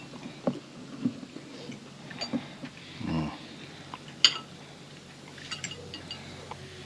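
Cutlery clinking against a plate as baked catfish is eaten: a handful of separate sharp clinks, the loudest about four seconds in.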